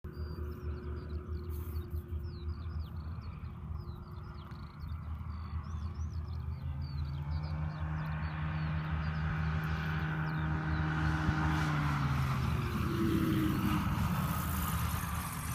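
Sherwood Ranger microlight biplane's propeller engine approaching to land: it fades in after about six seconds, grows steadily louder and drops in pitch as it passes close near the end, over wind buffeting the microphone. A small bird chirps repeatedly for the first several seconds.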